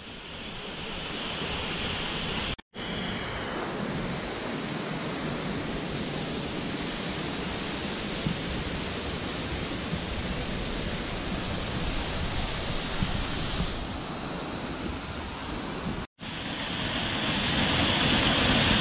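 Waterfall rushing over rocks: a steady roar of falling water. It cuts out briefly twice and is louder after the second break, where the falls are close.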